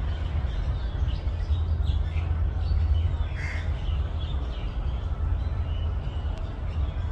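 A crow caws about three and a half seconds in, while other birds give brief chirps now and then over a steady low rumble.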